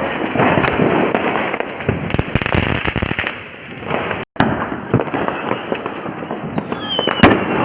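Diwali fireworks and firecrackers going off: dense crackling with many sharp bangs, and a brief dropout about four seconds in. Near the end a falling whistle leads into the loudest bang.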